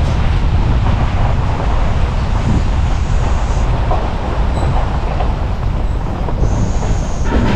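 Ford F250 pickup driving along a gravel road: a steady, loud rumble of tyres on gravel and road noise.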